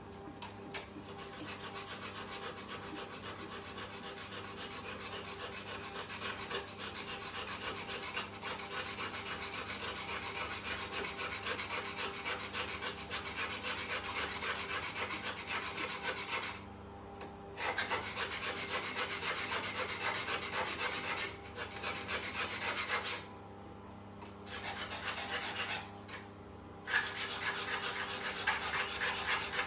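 A small kitchen knife being sharpened: rapid rasping strokes of the blade, stopping briefly a few times in the second half.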